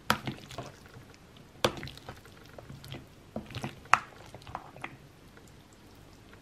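Metal serving spoon stirring bow-tie pasta salad in a creamy dressing in a bowl: soft wet squelching, with several sharp clinks as the spoon knocks the bowl, the loudest near the start, about a second and a half in and about four seconds in.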